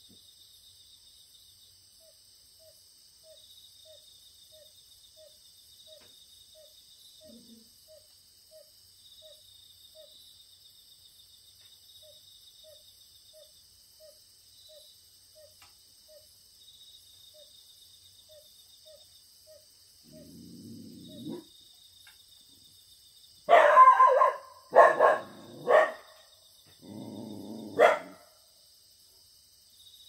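Crickets and other autumn insects chirping steadily, with a soft low note repeating about every half second. Near the end a low rumbling sound comes, then a young Jindo-mix puppy barks loudly several times in quick bursts, with one last sharp bark: alarm barking at wild boars coming down to the chestnut grove.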